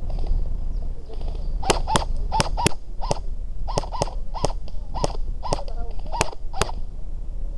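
An airsoft gun firing about a dozen single shots in an irregular string, two to three a second, starting a couple of seconds in and stopping near the end, over a steady low rumble of wind and handling on the microphone.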